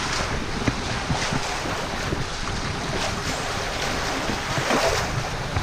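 Wind buffeting the microphone over water rushing and splashing along the hull of a sailing catamaran under way.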